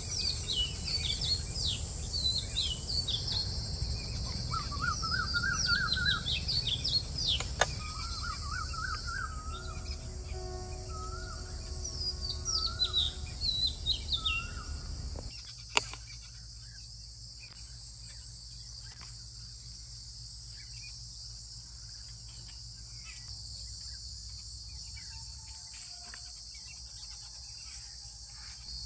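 Outdoor ambience: birds chirping and calling in short falling notes and warbling phrases, over a steady high insect chirring and a low background rumble. About halfway through, the birdsong and rumble cut off and the insect chirring goes on alone.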